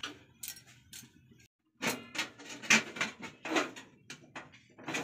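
Aluminium steamer pot and lid being handled as the lid is put on: a run of light metal clanks and knocks, broken by a brief dropout about a second and a half in.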